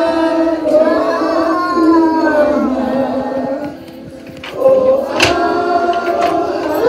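A group of young kindergarten children singing together, breaking off briefly about four seconds in before starting the next line.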